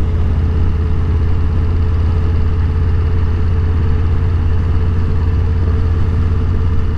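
Motorcycle engine running steadily, a constant low drone with no change in pitch.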